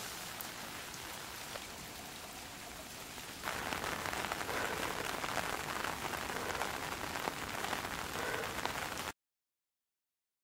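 Rain falling and pattering steadily, louder after an abrupt jump about three and a half seconds in, then cutting off suddenly to dead silence near the end.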